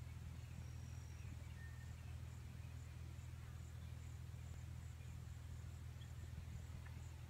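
A steady low hum, with faint high insect chirping repeating about twice a second over it.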